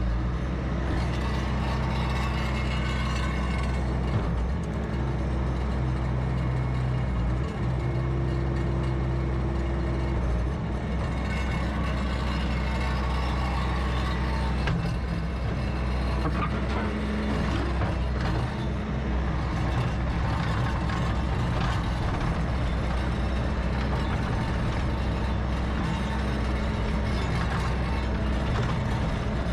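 Bobcat T450 compact track loader's 61 hp diesel engine running steadily while the machine works, with a brief higher steady tone about eight seconds in.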